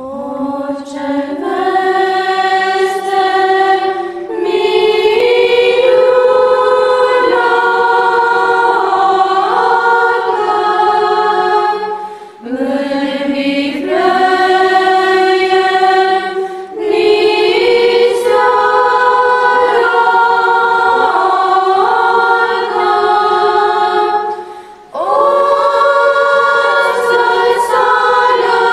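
A choir singing unaccompanied in slow, long-held phrases, with short breaks between phrases every few seconds.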